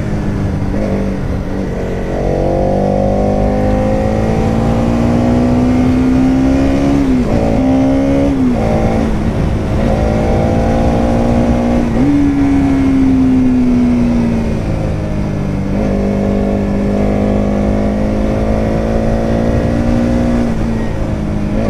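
Bajaj Pulsar NS200's single-cylinder engine under way, heard from the rider's helmet. The pitch climbs, breaks twice about seven to nine seconds in as gears change, jumps up about twelve seconds in and then falls slowly as the bike slows, and holds steady near the end, over a rush of wind.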